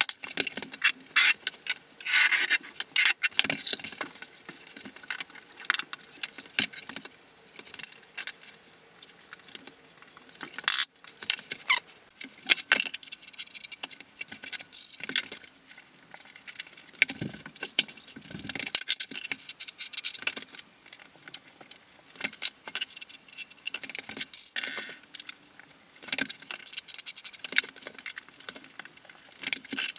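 Irregular clicks, knocks and light metallic clinks of tile-setting work: tiles, clips and tools tapping against each other and the wall, with quieter scraping between.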